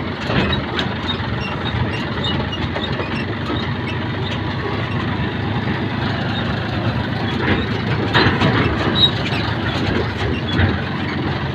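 An engine running steadily, with a few short knocks and rattles about eight and ten and a half seconds in.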